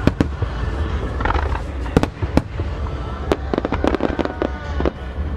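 Starmine barrage of aerial firework shells from Beniya Aoki Enka bursting in sharp bangs: two near the start, two more about two seconds in, and a dense run of reports from about three and a half to four and a half seconds in, over a steady low rumble.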